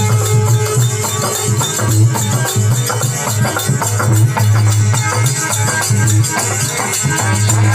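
Instrumental interlude of a Rajasthani devotional bhajan: a melody over a pulsing bass and steady percussion, with no singing.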